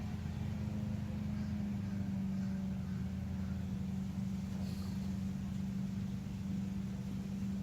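Steady low mechanical hum with a constant drone, like a motor or engine running in the background.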